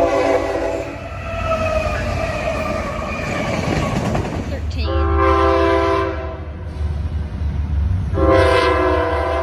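Locomotive multi-chime air horn sounding a chord. A blast ends about a second in and the horn then slides lower in pitch as it fades, followed by two more blasts of a bit over a second each, over the low rumble of the passing train.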